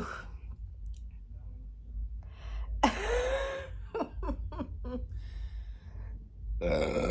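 Close-up eating sounds: bites and quick crunches of a fried-tortilla tostada shell, with a throaty burp near the end.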